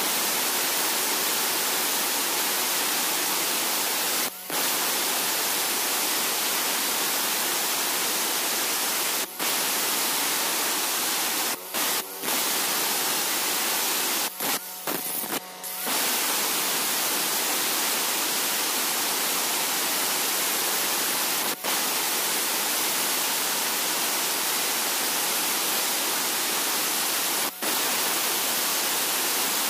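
Electric angle grinder with a cutting disc cutting grooves into hard river stone, a steady hiss that breaks off for a split second several times.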